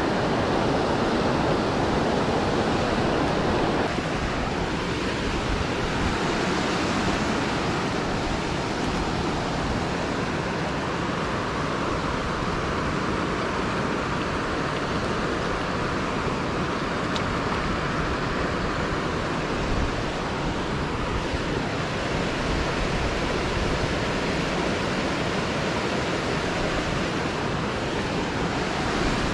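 Steady rush of water pouring over a dam spillway into the creek.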